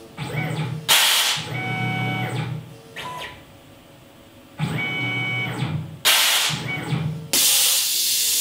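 Tormach 1100 CNC mill's automatic tool changer swapping from the current bit to a drill: short blasts of compressed-air hiss from the power drawbar releasing and clamping the tool, about a second in, around six seconds in, and again from about seven and a half seconds, with the steady whine of the axis motors moving the spindle head in between.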